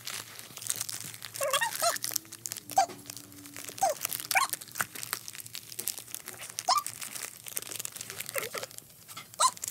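A dog tearing at and crinkling the wrapping paper of a present with her mouth and paws: irregular sharp paper crackles and rips throughout.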